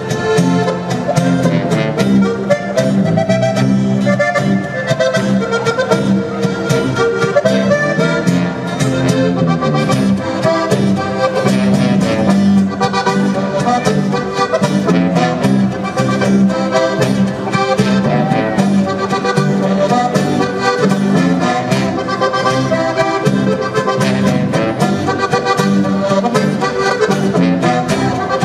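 Live Tyrolean folk band playing an instrumental dance tune in Ländler style, led by accordion over guitar and tuba bass.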